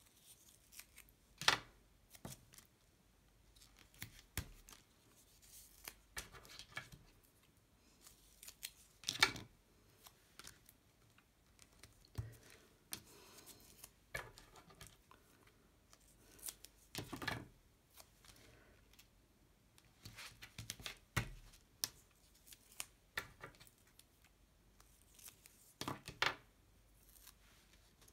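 Adhesive tape being pulled from its roll and cut with scissors in short, crisp snips, with paper and tape rustling in between. A handful of sharper snips stand out, spread out several seconds apart.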